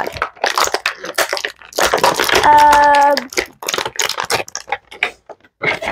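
Clear plastic toy packaging and an action figure handled and cut, making many quick crinkles, clicks and rattles. About two and a half seconds in, a short held hum of effort from a boy sounds over it.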